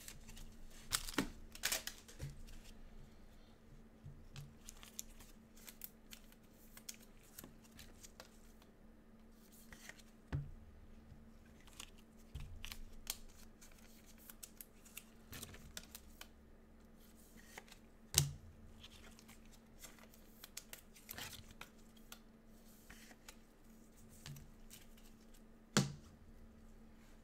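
Trading cards and their wrappers being handled: quiet rustling, crinkling and tearing of pack foil, with a few sharp clicks and taps, the loudest about a second in, at about 18 s and near the end.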